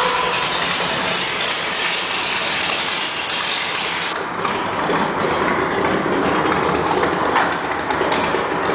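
Race-built 355 cubic-inch small-block Chevy V8, with 12-to-1 compression and a high-lift roller cam, running just after being started. It is a dense, steady engine noise that gets a little louder about halfway through.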